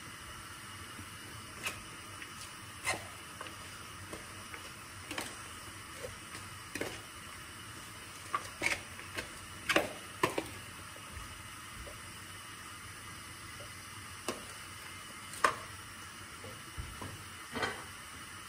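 Salad being tossed by hand in a plastic bowl: scattered light knocks, clicks and rustles at irregular intervals over a steady faint hiss.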